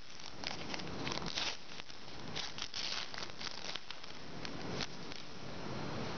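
Plastic wrapper of a basketball trading card pack being torn open and crinkled by hand, a run of crisp crackles that thins out near the end.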